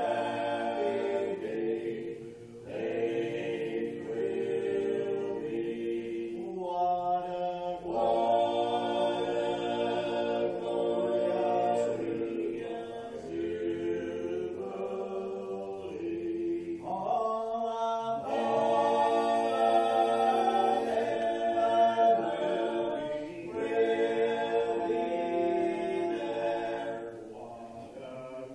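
A mixed a cappella gospel quartet, three men and a woman, singing a hymn in harmony with no instruments. The sung phrases are held and broken by short breaths, and the singing grows softer near the end.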